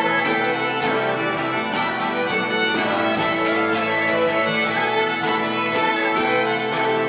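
Swedish traditional folk tune played by two fiddles over a strummed 12-string guitar in a steady rhythm, with harmonium underneath.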